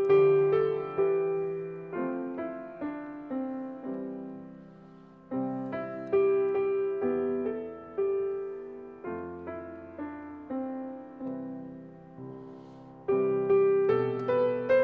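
Solo piano playing, notes and chords struck and left to ring out. The phrases die away and new ones begin about five and about thirteen seconds in.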